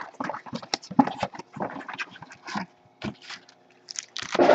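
Baseball card blaster box packaging being torn open: irregular crinkling and ripping of wrappers, loudest near the end.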